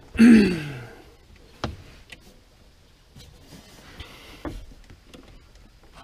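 Hands working on a golf cart's throttle linkage and cable: a short sound sliding down in pitch about a quarter second in, then a sharp click and a few light knocks and ticks.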